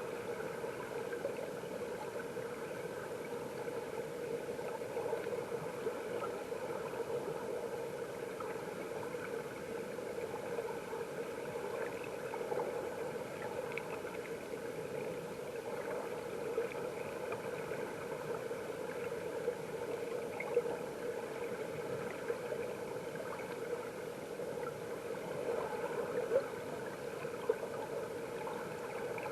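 Mountain stream water flowing, heard from under the water: a steady muffled rush with a few faint ticks scattered through it.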